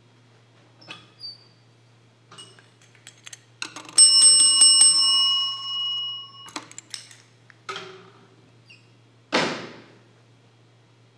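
Clicks and knocks of objects handled at a lectern. About four seconds in, a struck metal object gives a loud, bell-like ring of several clear tones, which is cut off suddenly about two and a half seconds later. Near the end there is a short, loud rustling thump.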